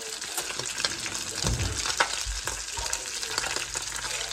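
Whole small tilapia frying in hot oil in a cast iron skillet: a steady sizzle dotted with frequent sharp crackles and pops.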